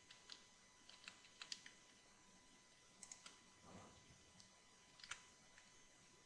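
Near silence with a handful of faint computer keyboard and mouse clicks, coming in small scattered groups as the modelling software is worked.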